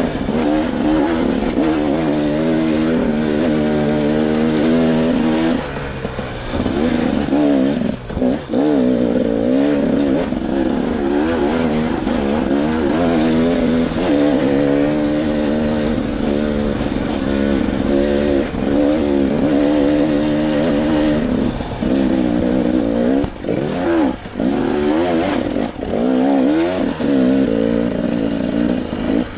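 Dirt bike engine under way on a trail, its pitch rising and falling as the throttle is worked through the gears, with a few brief drops when the throttle is shut.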